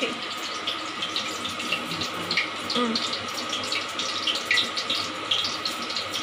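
Steady hiss of a lit gas stove burner under a wok of heating oil, with scattered small crackles as the oil warms.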